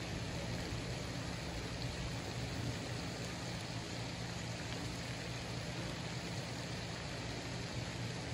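Steady rushing outdoor noise with a low hum underneath, unchanging throughout.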